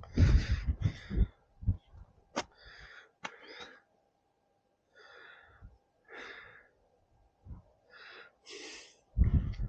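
Wind and handling noise on a hand-held camera microphone: low rumbling buffets at the start and again near the end, with short breathy hisses and two sharp clicks between.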